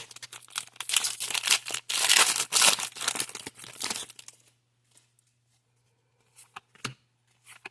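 Pokémon card booster pack's foil wrapper being torn open and crinkled for about four and a half seconds, then a few faint ticks of cards being handled.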